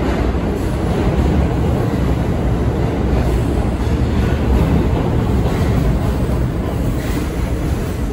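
Steady low rumble of a subway train alongside the platform.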